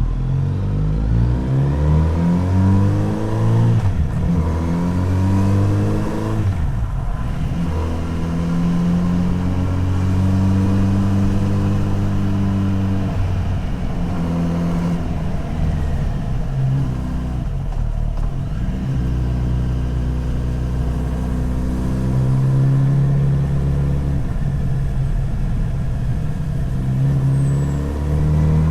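Kawasaki Z900RS's inline-four engine ridden on the road: the revs climb and fall several times as it accelerates and changes gear, with stretches of steady cruising in between.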